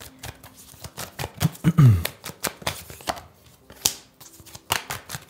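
Tarot cards being shuffled by hand: a run of quick, irregular clicks and snaps as the cards riffle against each other. About two seconds in, a short hum from the man's voice falls in pitch.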